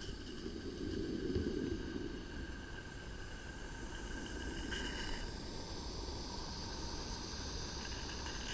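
A garden-scale steam train's wagons rolling past on the rails, a low rumble of wheels on track loudest about one to two seconds in, with the live-steam locomotive, a Roundhouse Billy, coming by near the end.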